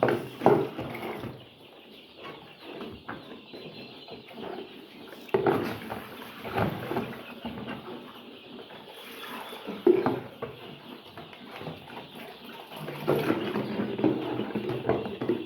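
A large flock of two-week-old layer chicks calling all at once, a dense continuous chatter, with a few louder knocks and handling noises among it.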